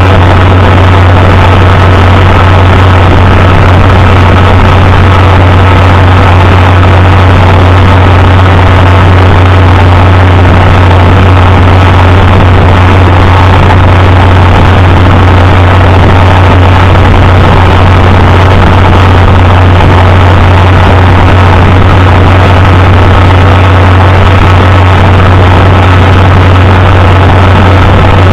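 International 560 tractor's six-cylinder engine running loud and steady, its low hum unchanging throughout.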